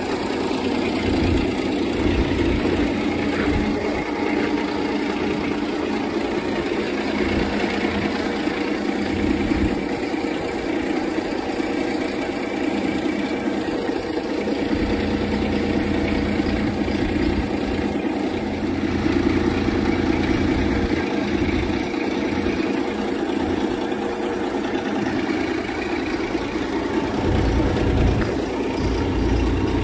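Caterpillar DP40K forklift's diesel engine idling steadily, with no revving.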